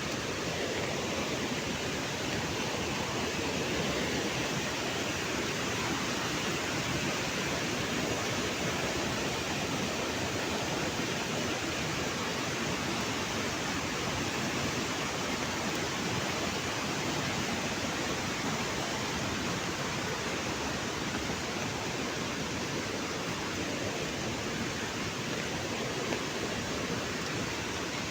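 Heavy rain pouring down steadily, a dense, even hiss without let-up.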